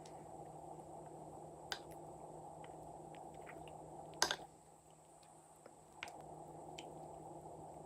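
Slime being handled and squished, with small sticky clicks and pops scattered through and one sharp, louder click about four seconds in.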